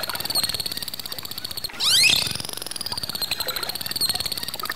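Dolphins whistling underwater over a rapid train of clicks: a high, wavering whistle is held throughout, and a quick rising whistle comes in louder about two seconds in.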